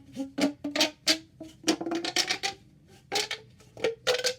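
Plastic pop tubes being pushed back together, their ribbed sections snapping shut in a quick, irregular run of pops. Many pops carry a brief pitched note.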